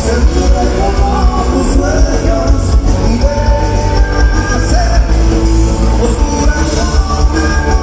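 Loud live band music playing over amplified speakers, with singing and a heavy bass.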